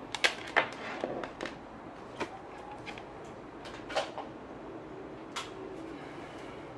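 Sharp clicks and knocks of a power lead and its plug being handled on a tabletop, several in quick succession in the first second and a half, then single ones about two and a quarter, four and five and a half seconds in, the one at four the loudest.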